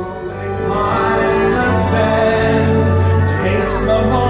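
Soundtrack of a nighttime castle fireworks show: orchestral music with singing, with held notes, played over the park's loudspeakers.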